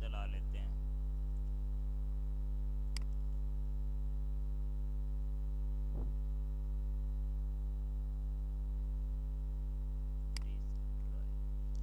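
Steady electrical mains hum with a buzzy stack of overtones, broken by three short clicks spaced a few seconds apart.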